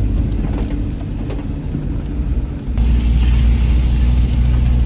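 Car cabin road noise while driving in rain: a steady low rumble from the engine and tyres, growing louder about three seconds in. Raindrops tick on the windscreen.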